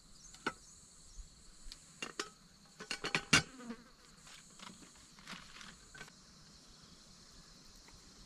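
Insects keep up a steady high-pitched drone. Over it comes a run of sharp clicks and knocks, bunched and loudest just over three seconds in, then thinning out.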